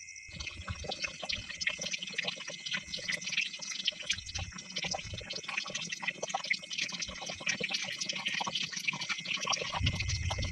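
Wet concrete mix pouring and slopping out of a small plastic cup onto a flat deck, a dense run of crackly wet splats as it piles up. Birds chirp steadily in the background.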